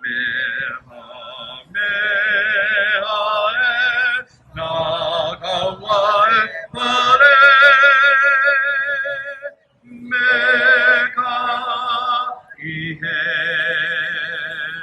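A solo voice singing long held notes with heavy vibrato, with no accompaniment heard, in phrases broken by short pauses for breath.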